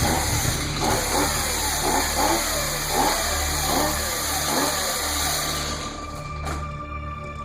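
Two-stroke chainsaw revving over and over in short rising and falling bursts, with a steady pulsing musical score underneath. The revving stops about six seconds in, leaving a held tone.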